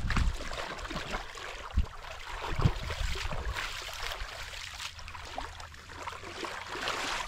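Water splashing and lapping around a fishing kayak, with a few short low thumps.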